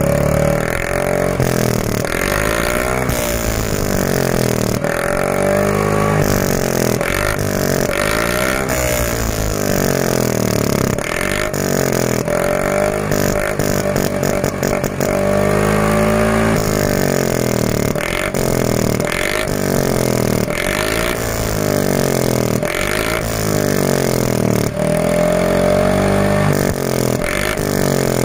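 Yamaha Fino scooter's single-cylinder four-stroke engine revved up and down over and over through a cut-open, reworked stock muffler (a 'bobol' exhaust), with a longer high rev about halfway. The sound is loud.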